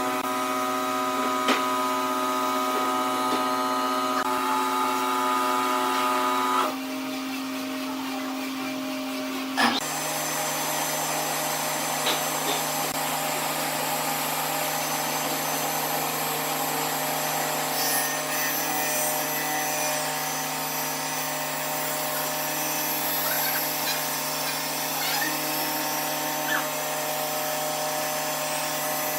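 Wood lathe's electric motor running with a steady whine of several tones over a hiss. The whine changes abruptly twice, about seven and ten seconds in.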